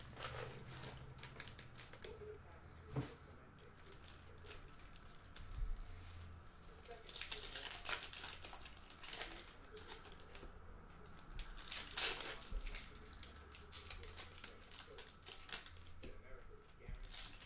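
Foil wrappers of 2020 Panini Contenders football card packs crinkling and tearing open by hand in short, irregular bursts, the loudest about 8 and 12 seconds in.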